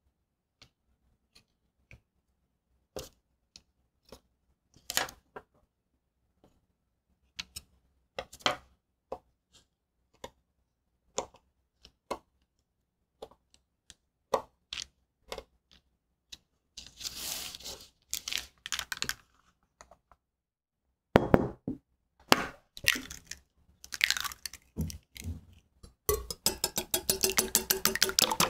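Scattered soft taps and clicks of a metal round cutter and a knife pressing through thin cookie dough on parchment over a wooden board, with a few louder rustling and knocking sounds later on. In the last two seconds or so, a wire whisk beats eggs in a glass bowl, a fast even run of clicks against the glass.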